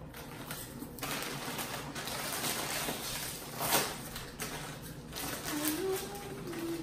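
Foil snack-chip bags crinkling and rustling as chips are handled and tipped out, with one louder crackle partway through. A short low hum of a voice near the end.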